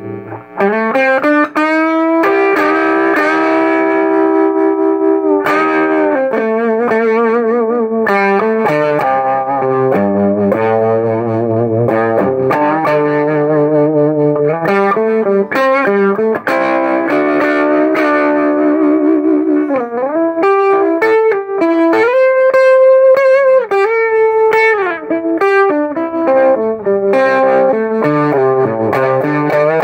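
Gibson Les Paul electric guitar played through a small Knox Trem-tone tube combo amp, strumming changing chords and riffs with a gritty, slightly distorted tone.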